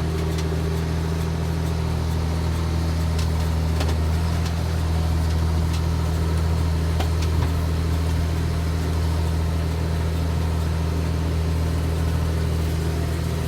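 Tractor engine running steadily at its set PTO revs while driving a baler, with a few faint ticks in the middle.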